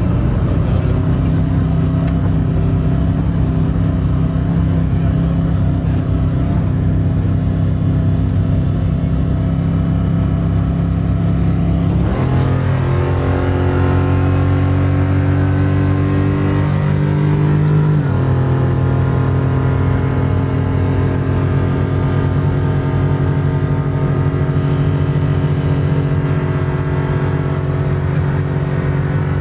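Off-road race truck's engine running hard at speed. About twelve seconds in the sound switches to inside the cab, where the engine note climbs steadily for about six seconds, drops at a gear change, then holds steady.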